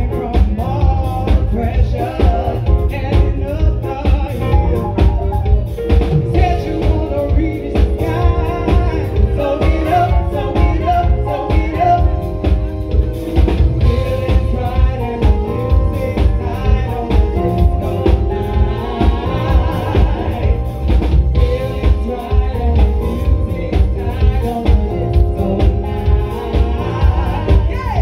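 Live band playing a song with a steady drum-kit beat: a woman sings lead into a microphone over electric guitar, keyboard and drums.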